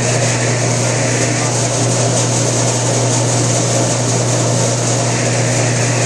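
Electric sheet-metal power flanger (edger) running steadily with a constant motor hum and hiss while the edge of a curved duct-elbow cheek is fed through it to turn a flange.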